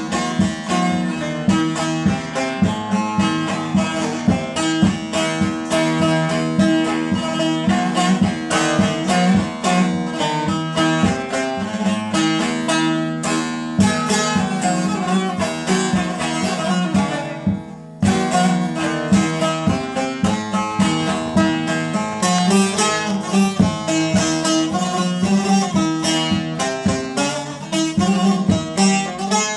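Solo tembûr (long-necked saz) playing a quick plucked melody over steady low ringing strings, with a brief break about 18 seconds in.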